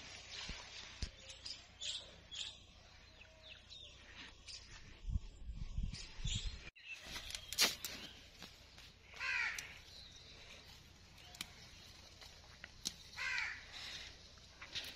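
Bird calls outdoors: a run of calls about nine seconds in and another near thirteen seconds, among scattered clicks and knocks, with low thuds about five to six seconds in.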